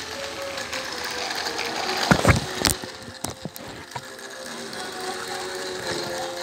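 Battery-powered toy train engines running on plastic track, their small motors and gearboxes giving a steady whirring, ratcheting rattle. A few sharp knocks come about two to three and a half seconds in.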